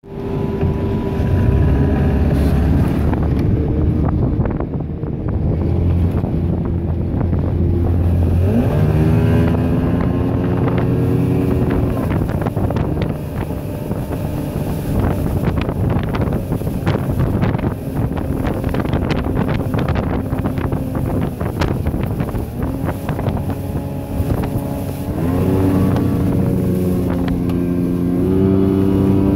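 Evinrude outboard motor driving a deck boat at speed, its pitch rising sharply about nine seconds in, again about 25 seconds in and once more just before the end as it revs higher, reaching around 5,500 rpm. Wind buffets the microphone throughout.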